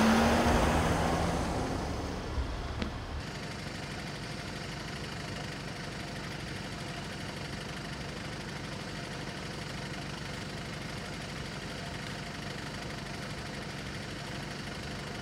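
A vehicle drives past close by, loudest right at the start and fading over the next two seconds. After a cut about three seconds in, a vehicle engine idles with a steady hum.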